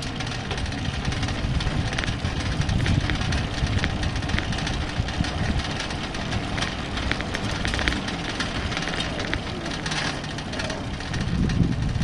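Electric bike rolling along a residential street: a steady low rumble of wind on the microphone and tyre noise, with scattered light ticks. The rumble swells louder near the end.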